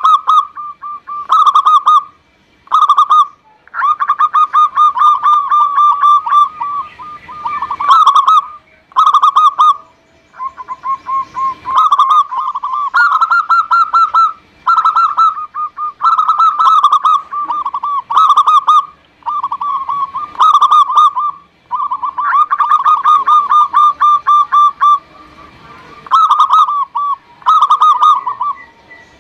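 Zebra dove (perkutut) cooing: phrases of quick, rolling coos, most about a second long and two of nearly three seconds, repeated over and over with short pauses between them.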